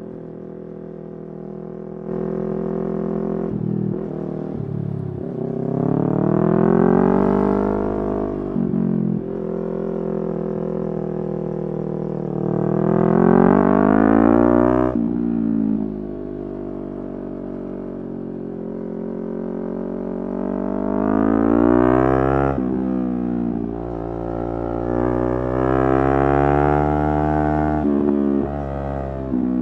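Yamaha R3's 321 cc parallel-twin engine pulling hard four times, its pitch rising through the revs and then dropping suddenly at each shift or roll-off, with steadier cruising stretches in between.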